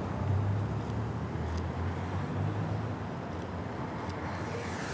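Steady city street traffic: a low engine rumble from passing vehicles.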